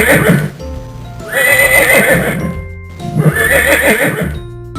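A horse whinnying, three warbling whinnies in a row, over steady background music.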